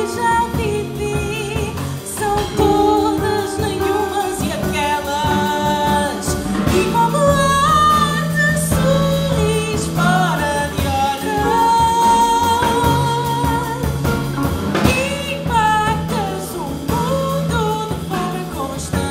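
A female singer sings a melody with vibrato and glides, backed by a live jazz quartet of electric guitar, upright double bass and drum kit.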